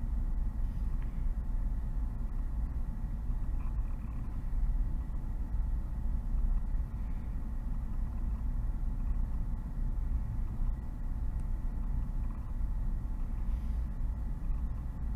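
Steady low rumble of background recording noise with a faint steady hum, unchanging throughout.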